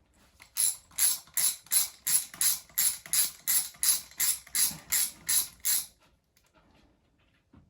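Hand ratchet clicking in even strokes, about three a second, as a 10 mm water pump bolt is backed out; the clicking stops about six seconds in.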